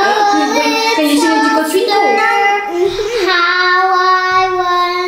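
A child singing, the pitch moving between notes and then holding one long note from about three seconds in.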